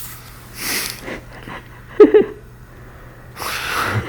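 A woman breathing hard in labour: two long, breathy exhales, with a short, loud burst of voice about two seconds in.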